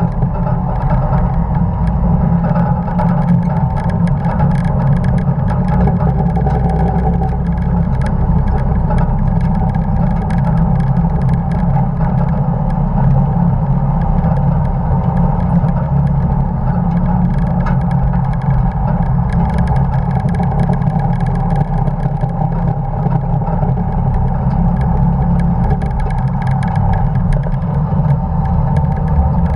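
1950 Dodge pickup truck running at racing speed on a circuit: its engine pulls steadily under load over a dense rush of road and wind noise.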